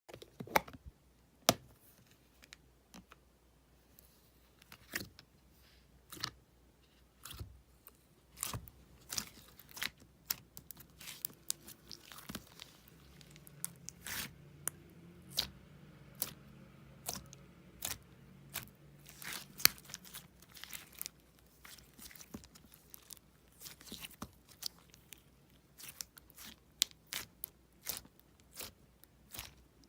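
Slime being squeezed and pressed by hand, giving irregular sharp pops and crackles a few times a second, busier after the first few seconds.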